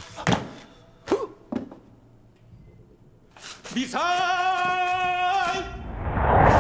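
A few short knocks, then a man's long, drawn-out shout of "Missile!", followed near the end by a loud explosion-like blast swelling up.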